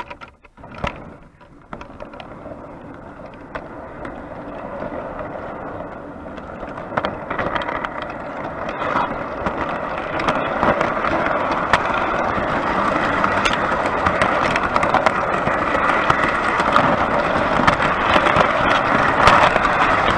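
O gauge three-rail tinplate model train running, heard from aboard one of its carriages: a couple of sharp knocks as it moves off, then a rattling rolling noise full of small clicks that grows steadily louder as the train picks up speed.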